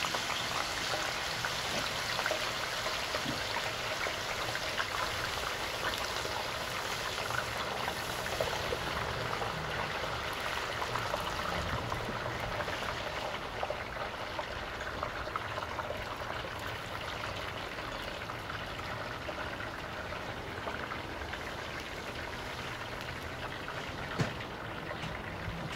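Canola oil deep-frying a basket of freshly dropped raw russet potato fries: a steady, dense sizzling and crackling as the water in the wet fries flashes off to steam. It eases slightly toward the end, with one light knock near the end.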